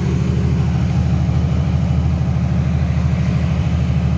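Mitsubishi diesel generator set running steadily at constant speed inside its closed soundproof canopy, a low, even engine hum.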